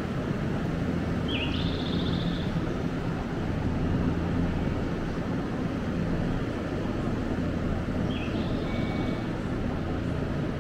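Steady hum of a Nankai electric commuter train standing at the platform, its onboard equipment running while the train waits. Two short high chirps cut in, about a second and a half in and again about eight seconds in.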